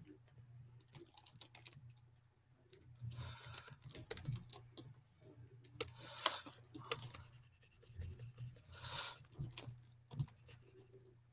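Faint, irregular clicking and tapping of a computer keyboard, with a few brief soft rushes of noise, over a low steady hum.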